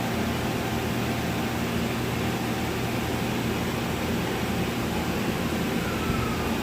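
Soft-serve ice cream vending robot at work: a steady machine hum and whir at an even level, dropping off just as it finishes.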